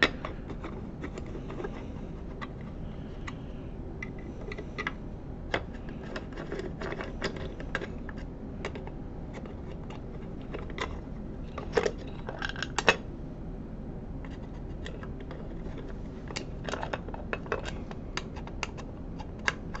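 Small parts of a Bausch & Lomb StereoZoom 7 microscope being handled and opened up by hand: scattered light clicks, taps and scrapes of metal and plastic, with a few sharper knocks about twelve to thirteen seconds in.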